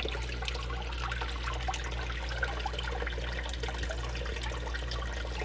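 Thin film of water trickling steadily over a Miller gold-separating table as it washes black sand concentrate, with a steady low hum underneath.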